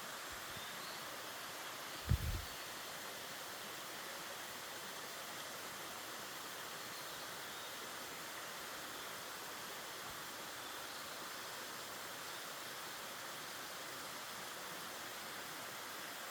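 Steady rush of a mountain stream flowing in a valley, with a brief low thump about two seconds in.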